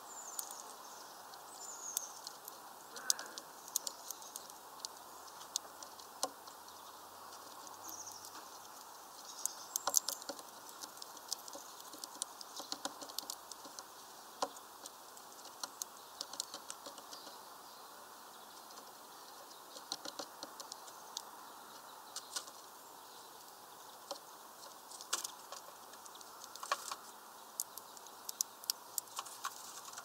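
Small tit pecking and scrabbling at a mesh bag of peanuts and on the wooden perches: irregular sharp taps and clicks, sometimes in quick runs.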